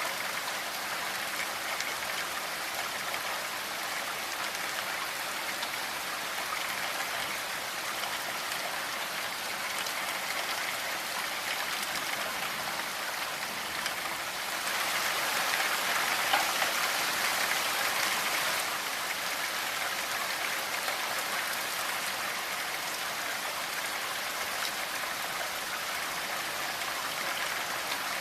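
Steady rainfall: an even hiss of falling rain, swelling a little louder for a few seconds about halfway through.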